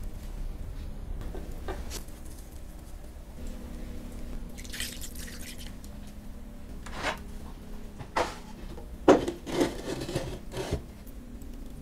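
Soft rubbing and handling sounds as food is set into a cast-iron pan. From about eight seconds in come several sharper knocks and scrapes, loudest a little after nine seconds, as the heavy pan is slid into a wood-fired oven.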